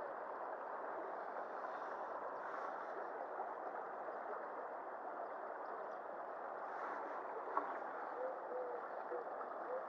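Shallow river water running steadily over its bed, an even rushing babble, with a single small click about three quarters of the way in.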